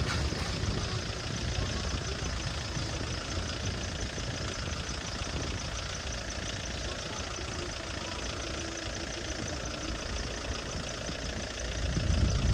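An engine idling steadily, with a low rumble that swells briefly near the end.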